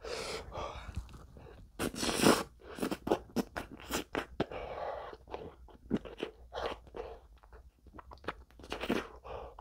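Close-miked mouth sounds of a man eating a spoonful of ice cream: wet smacks and clicks of the lips and tongue, with breathy huffs out through pursed lips as he cools a mouth burning from extra-spicy noodles.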